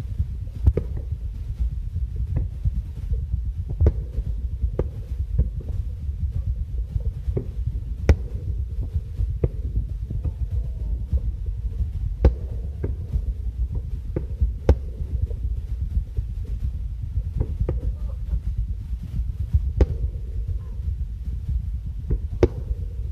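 Fireworks shells bursting: a run of dull booms and sharp cracks about every second, over a constant low rumble.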